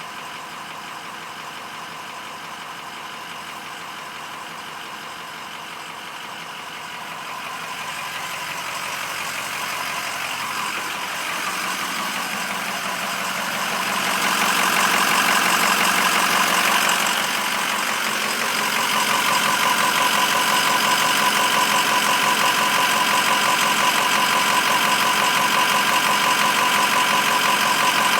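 2006 Ford 6.0 Powerstroke turbo-diesel V8 idling with a knock. It grows louder in steps about halfway through and stays louder.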